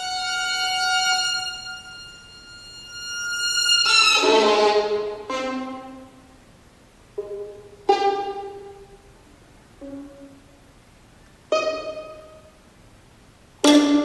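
Solo violin holding a long high note that swells and fades, then a loud accented attack that slides downward, followed by a sparse string of short, sharply struck notes that ring and die away, a second or two apart.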